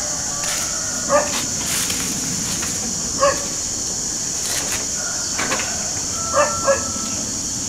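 A dog barking in short single barks, four in all, the last two in quick succession, over a steady high-pitched hiss.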